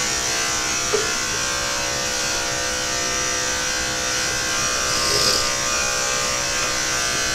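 Andis AG Super 2-speed electric dog clippers running with a loud, steady buzz as they trim the hair on a puppy's head and around her ears. There is a small click about a second in.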